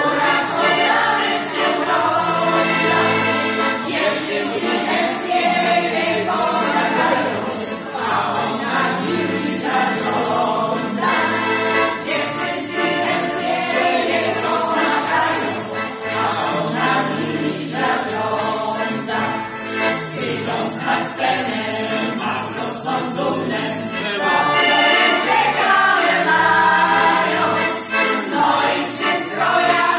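Mixed group of women's and men's voices singing a folk song together in unison, accompanied by a piano accordion playing a steady, stepping bass.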